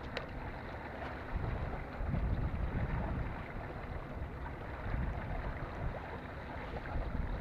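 Wind buffeting the microphone in irregular gusts over a steady wash of water against shore rocks, with one faint click just after the start.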